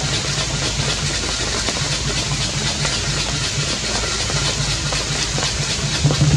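Steady hiss of rain, with a low engine hum underneath that grows louder near the end.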